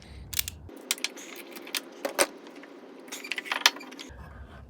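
Irregular sharp metallic clinks and clicks of hand tools and a steel bolt being worked loose from an engine mount.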